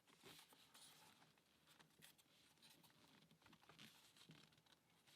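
Near silence with faint scattered clicks and taps from the plywood parts of a UGears wooden combination-lock puzzle being handled.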